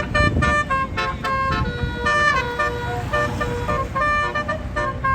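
Basuri 'telolet' musical air horn on a tour bus, playing a quick tune of short, high horn notes that change pitch one after another.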